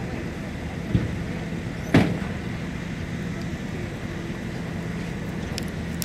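Heavy-equipment diesel engine running steadily, with a knock about a second in and a louder sharp bang a second later.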